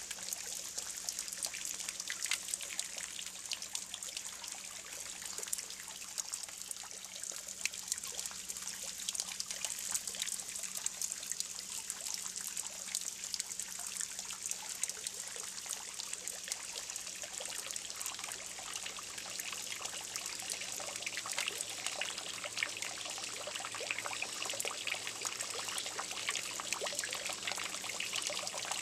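Spring water trickling and splashing steadily as thin streams from a pipe fall into a stone-walled pond.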